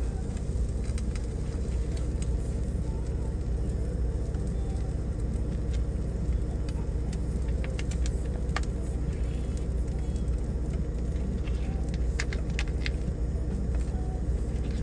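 Semi truck's diesel engine idling steadily, heard inside the cab, with small clicks and scrapes of a knife spreading guacamole on toast.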